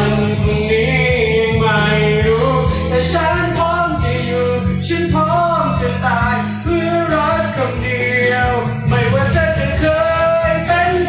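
Thai rock song playing: full band music with guitar and singing.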